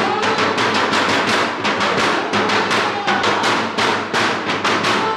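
Fast, steady drumming, about four to five hits a second.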